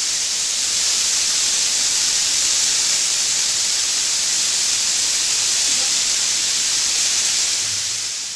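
Marinated chicken pieces sizzling in hot oil and their own juices in a non-stick frying pan: a steady hiss that fades out near the end.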